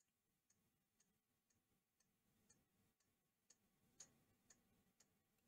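Near silence: room tone with very faint, even ticks about twice a second, one slightly stronger about four seconds in.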